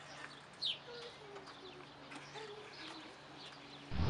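Birds chirping in short, quick, falling calls, with some lower notes and a steady low hum beneath. A much louder noise cuts in just at the end.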